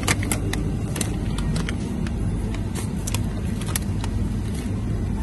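Plastic packs of sausages and meat crinkling and rustling in the hand, with short irregular crackles, over a steady low background hum.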